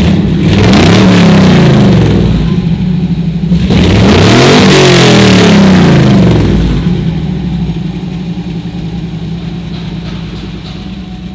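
Custom Ford Skyliner's LS3 6.2-litre V8 revved twice through its exhaust. Each rev rises and falls over about three seconds, and then the engine settles back to idle.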